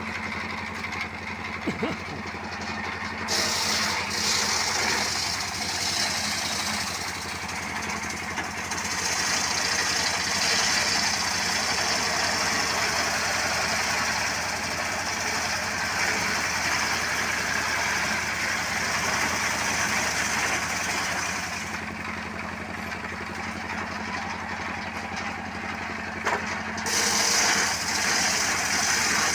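Small engine running steadily, with a higher hissing noise that comes in about three seconds in, drops away a little past twenty seconds, and returns near the end.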